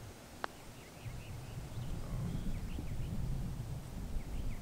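A putter strikes a golf ball once, a short sharp click about half a second in. After it comes a low wind rumble with faint, brief bird chirps.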